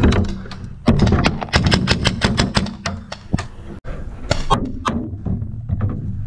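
Paintball markers firing in rapid, irregular volleys of sharp cracks, fastest in the middle, over a low rumble.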